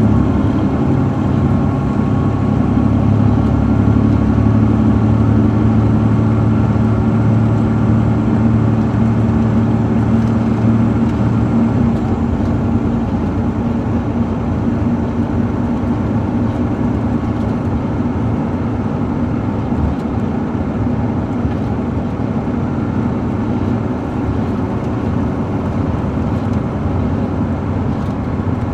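On-board sound of a 2007 MCI D4500CL coach's Caterpillar C13 ACERT straight-six diesel running under way, heard from inside the cabin as a steady low engine drone. About twelve seconds in, the strong low engine tone fades and the sound gets a little quieter.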